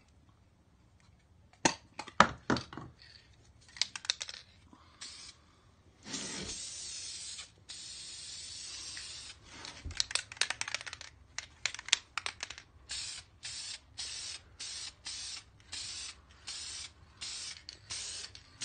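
Aerosol can of Duplicolor copper wheel coating spraying paint onto a wheel. First come a few sharp clicks and rattles, then one long hiss of about three seconds. After more clicking comes a string of about ten short hisses of about half a second each.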